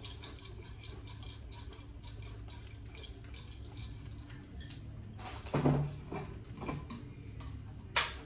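Paper raffle slips rattling inside a clear plastic jar as it is shaken: a quick run of small ticks, with a few louder knocks around five and a half to seven seconds in and a sharp click near the end.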